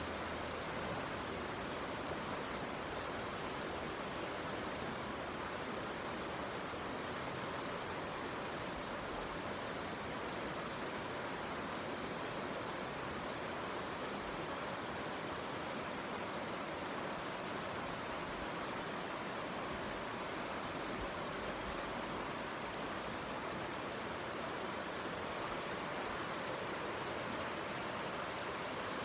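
Stream flowing past, a steady rush of running water with no change in level.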